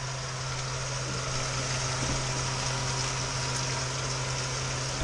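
Ham and sliced potatoes frying in two pans on a camper's propane stove, a steady sizzle over a constant low hum.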